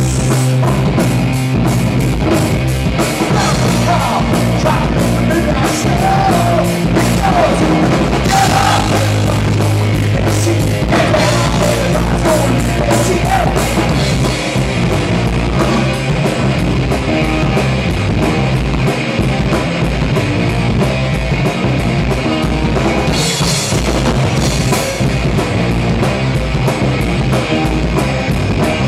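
A rock band playing loudly on electric guitars and a drum kit, driving on without a break.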